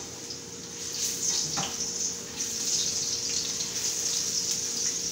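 Sweet potato slices sizzling and crackling in hot oil in a frying pan as they are turned over with a fork; the sizzle grows louder about a second in.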